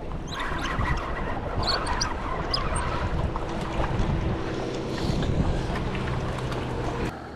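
Spinning reel being cranked, winding line in against a fish pulling on a hard-bent rod, with wind on the microphone and a low steady hum underneath. The sound cuts off suddenly near the end.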